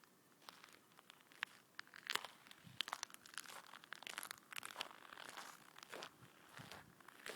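Footsteps crunching through deep snow, an uneven run of crackles with a few soft thumps.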